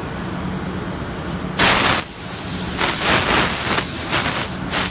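CNC wood router running with a steady hum, broken by four loud bursts of harsh hissing noise about a second apart.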